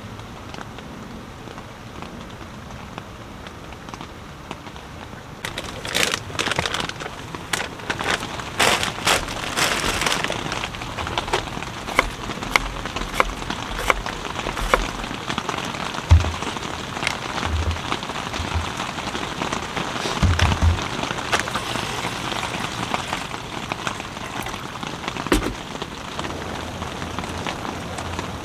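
Steady rain falling on a tent. About five seconds in it grows louder, with irregular clicks and taps of a knife cutting vegetables on a wooden cutting board and a few dull thumps over it.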